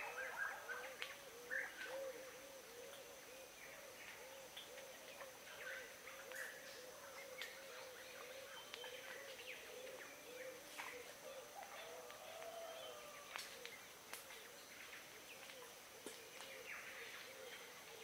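Tongan birds calling, quietly: a low, rapidly repeated note about two to three times a second, with scattered higher chirps and whistles over it and a faint steady high-pitched tone behind.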